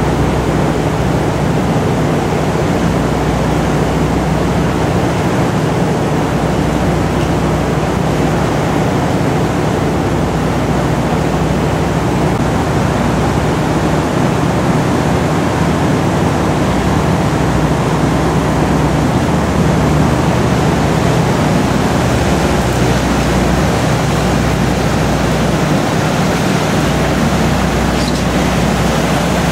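A river cruise boat under way, heard from its open-sided cabin: a steady low engine drone mixed with the rush of water and wind along the hull.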